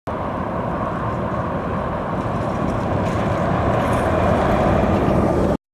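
Steady outdoor vehicle and road rumble with hiss, no engine note or tone standing out, growing a little louder toward the end and then cutting off abruptly.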